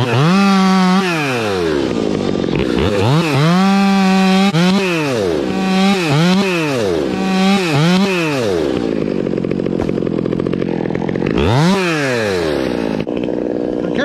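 Stihl two-stroke top-handle chainsaw cutting through a fir limb. It is throttled up to a held full-speed whine in a series of bursts, dropping back to idle between each. It idles steadily for a few seconds, then gives one last rev and fall near the end.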